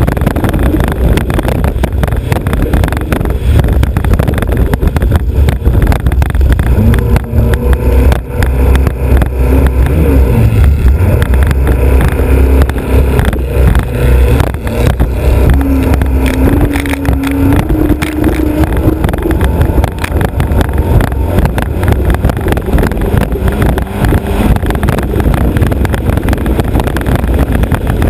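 Alfa Romeo Autodelta 2.5 V6 of a historic three-point racing hydroplane running hard at speed, loud and continuous, with wind rush on the bow-mounted microphone. Its note shifts in pitch in the middle as the revs change.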